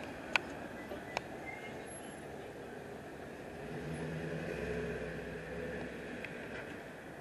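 Steady mechanical background hum, swelling for a couple of seconds around the middle, with two sharp clicks in the first second or so.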